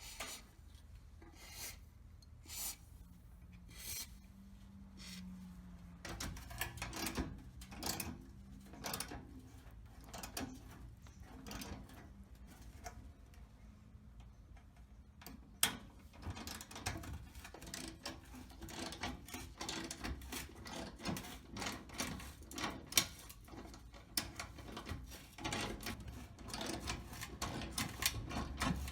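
Irregular clicks, taps and scraping from hand work, a few spaced sounds at first, then busier and more continuous after about six seconds.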